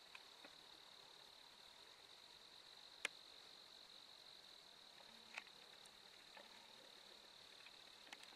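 Faint, steady, high-pitched insect trill, with a sharp click about three seconds in and a softer click a couple of seconds later.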